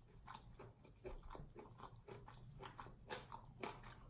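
A person chewing fried food close to the microphone: a run of faint mouth clicks, about three a second.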